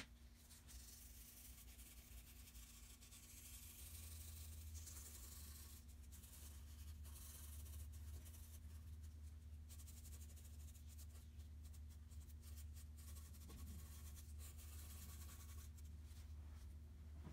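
Faint scratching and rubbing of a drawing tool on paper, in uneven strokes, over a steady low hum.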